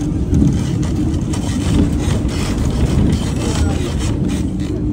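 Street noise in an old-town street: a motor vehicle's engine running steadily under scattered clatter and faint voices of passers-by.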